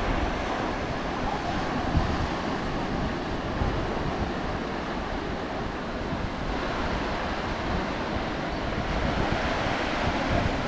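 Ocean surf breaking over a rocky reef as a steady rush, with wind buffeting the microphone in gusts.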